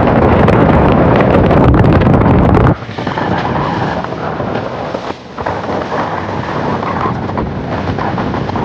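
Heavy wind buffeting the microphone, which cuts off abruptly about a third of the way in to a quieter, steady rushing noise.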